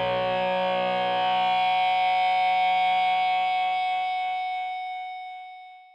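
Final chord of a rock song: a distorted electric guitar chord held and left to ring, fading away over the last two seconds.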